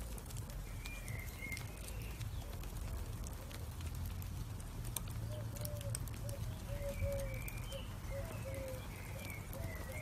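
Charcoal embers burning, with scattered faint crackles and ticks over a steady low rumble. Short, repeated tonal calls sound in the background, briefly about a second in and again through the second half.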